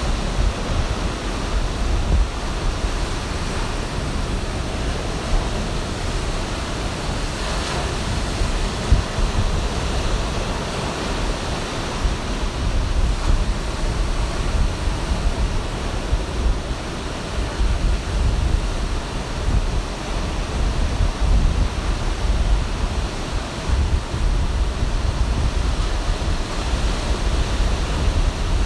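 Ocean surf breaking and washing up the beach, a steady rushing, with low gusty rumble of wind on the microphone.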